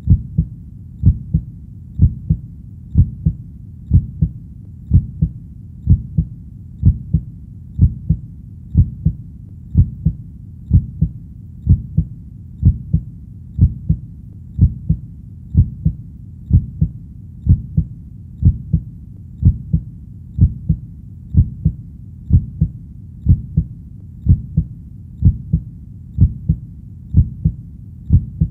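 Heartbeat thumping steadily at about one beat a second, each beat a low lub-dub double thump with the first stroke louder.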